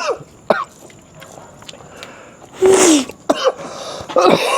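A person coughs once, loudly, about two and a half seconds in, with a few short vocal sounds around it.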